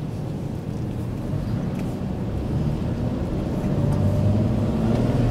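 Car engine and road noise heard from inside the cabin while driving slowly. The engine note climbs a little and grows louder over the last second or so as the car picks up speed.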